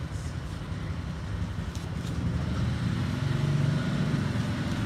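A motor vehicle's engine passing in the street, a low rumble that grows louder through the middle and eases off slightly near the end.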